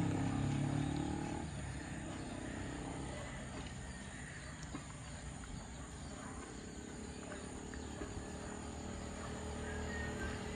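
Road traffic: a vehicle's engine drone fading away in the first second or two, then quieter outdoor ambience, then a motorcycle engine growing louder as it approaches near the end.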